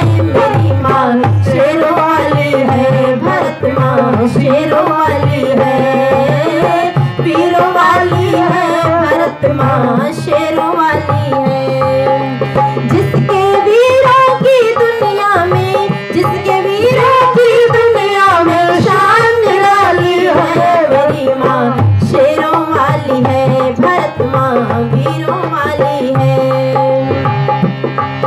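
A woman singing a Hindi song with tabla accompaniment, her voice bending and ornamenting the melody over steady drumming.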